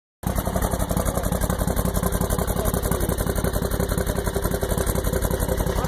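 Turbocharged Harbor Freight Predator 670cc V-twin engine in a Willys Jeep running steadily, heard at the tailpipe, with an even pulsing beat.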